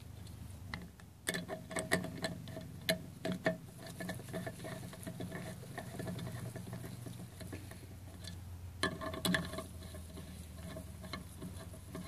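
Light metallic clicking and clinking of ball tube lock nuts being handled and fitted on a Ford 6.0L Power Stroke high-pressure oil rail. A quick run of clicks comes about one to three and a half seconds in, and another just before nine seconds in.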